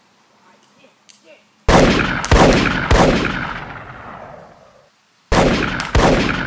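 Five gunshots: three in quick succession, their echo dying away over a couple of seconds, then two more near the end, cut off abruptly.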